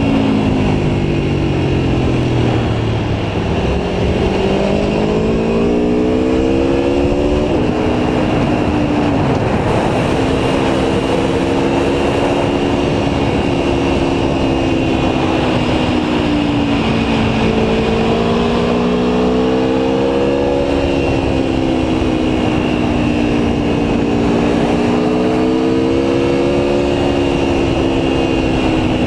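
Aprilia Tuono V4 1100 Factory's 65° V4 engine running under way, revs climbing through a gear and dropping at a shift about seven seconds in, then rising and falling gently, over a steady rush of wind and road noise.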